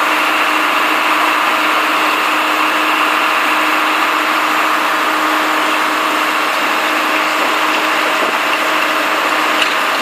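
ZGYX452 integrated DTH surface drill rig running, its 191 kW engine giving a loud, steady mechanical noise with a constant hum.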